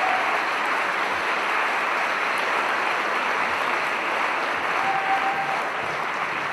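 Audience applause, a dense clapping wash that slowly dies down, with a brief whistle about five seconds in.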